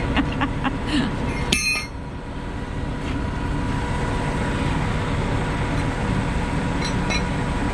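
Tow chains clinking against the steel wheel-lift boom of a heavy tow truck, several clinks in the first two seconds with one ringing strike about a second and a half in, over the steady running of the tow truck's engine. A couple of light clicks come near the end.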